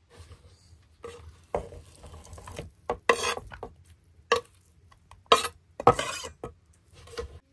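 Chef's knife scraping diced raw lamb and fat off a wooden cutting board into a metal frying pan, with scraping between about half a dozen sharp knocks of blade and board against the pan.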